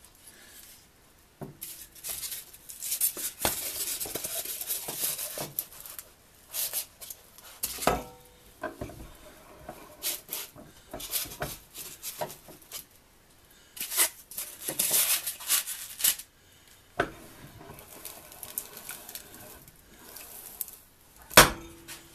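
Workbench handling sounds: a wooden floor-vent grille is rubbed, brushed and knocked against the bench, then set into a bench vise between styrofoam pads. Irregular scraping and rustling is broken by scattered knocks, with one sharp knock near the end.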